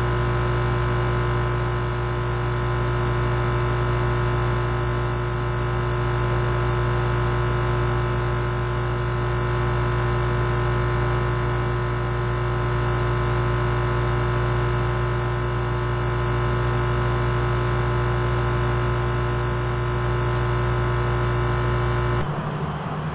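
A sleeping animal's whistling snore: a short, high whistle that falls in pitch comes with each breath, about every three and a half seconds. A steady low hum runs underneath.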